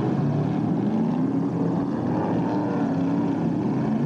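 Stock car racing engines running together in a steady drone, their pitch rising and falling as the cars circulate.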